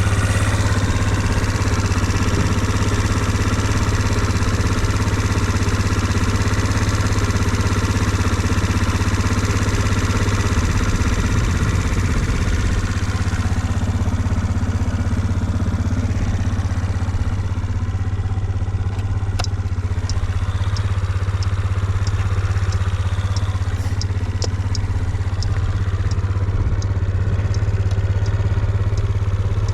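Suzuki Let's 4 scooter's small four-stroke single idling steadily. The seller describes it as free of abnormal noise after its recall repair. Faint, regularly spaced light clicks join the idle in the second half.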